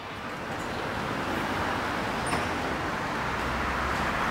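Road traffic noise on a city street: a steady rush of passing vehicles that grows gradually louder.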